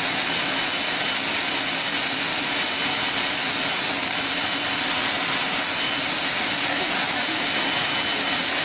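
Two welding torches on an automatic circumferential seam welder arc-welding the two girth seams of a rotating steel tank at once: a steady hiss and crackle of the arcs.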